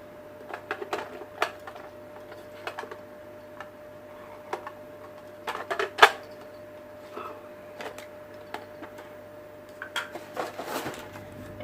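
Irregular light clicks and knocks of a coffee machine box's packaging and contents being handled, the loudest about six seconds in, over a faint steady hum.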